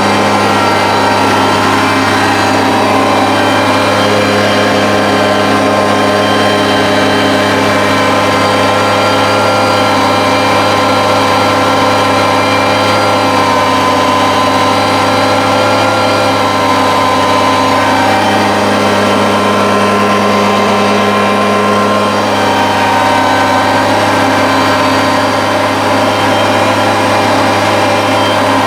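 Kubota BX compact tractor's three-cylinder diesel engine running steadily at high throttle while driving a 45-inch front snowblower through deep snow. Its pitch dips slightly and recovers a few times as the load changes.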